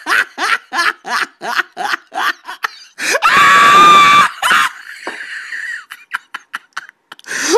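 A voice laughing hard in quick bursts, about four a second, then a loud, high-pitched scream about three seconds in. Scattered breathless giggles follow, and another shriek comes right at the end.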